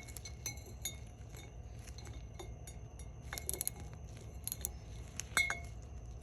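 Irregular light clinks and taps of hard objects knocking together, some with a short ringing tone, over a low steady hum.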